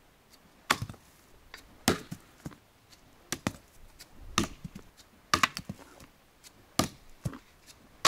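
Axe striking wood repeatedly: six sharp knocks spaced a second or a little more apart, with a few lighter taps between.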